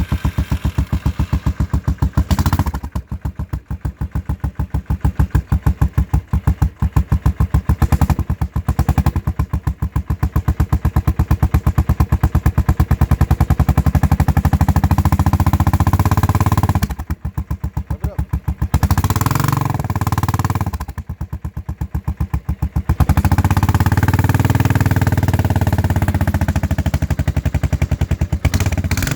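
Suzuki LS650 Savage's 650 cc single-cylinder four-stroke engine running through an aftermarket exhaust. It idles with an even, lumpy beat and is revved up and let back down several times, with a longer held rev near the middle and again near the end.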